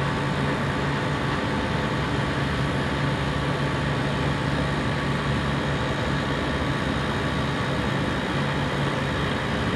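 Compressor running steadily: a continuous mechanical drone with a constant low hum and no change in speed.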